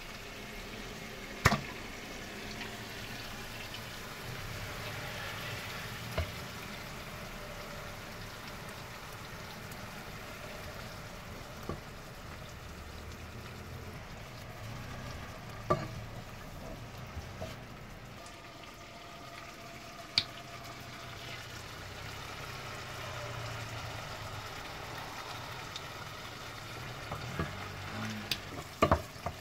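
Chopped tomato and onion sizzling in olive oil in a saucepan, a steady frying hiss. A few short sharp knocks break in, several of them near the end as the wooden spoon stirs the pan.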